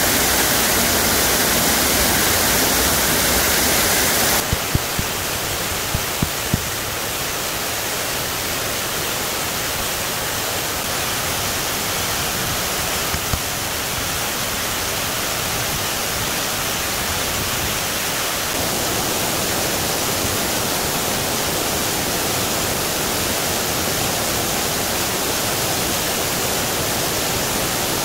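Waterfall and mountain stream rushing steadily: a dense, even hiss of falling water. The sound shifts slightly about four seconds in, and a few light knocks come soon after.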